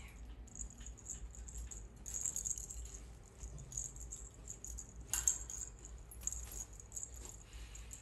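Plastic lattice ball toy rattling in quick, irregular bursts as two cockatiels peck and pull at it with their beaks, with one sharper click about five seconds in.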